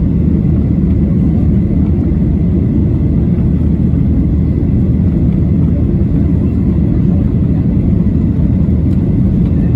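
Cabin noise of a Boeing 737-800 in climb, heard from inside the cabin: the steady low rumble of its CFM56-7B turbofan engines and the airflow, with a faint steady high tone above it.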